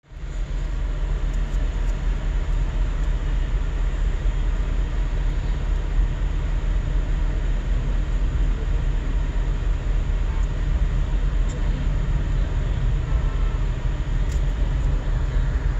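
Steady low road rumble of a moving car, tyre and engine noise heard from inside the cabin.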